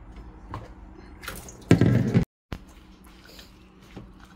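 Kitchen handling noises: a loud half-second burst of rustling and knocking about halfway through that cuts off suddenly, then faint ticks of a spoon against a steel mixing bowl.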